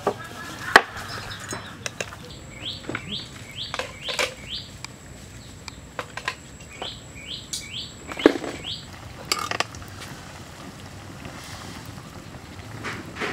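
Metal ladle and tongs knocking and scraping against a steel wok in a handful of separate clinks, the loudest about a second in. In the middle a bird calls in two quick runs of short rising notes.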